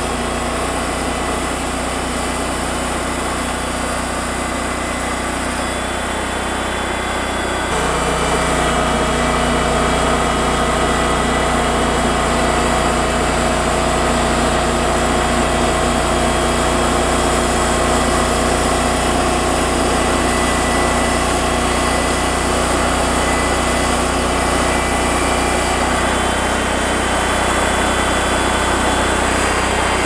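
TimberKing 2000 band sawmill running steadily, its band blade making a thin first cut along a white willow log. About eight seconds in, the sound steps up and grows louder and stays that way.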